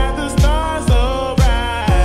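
Background pop music with a deep, booming kick drum about twice a second under a sung or synth melody.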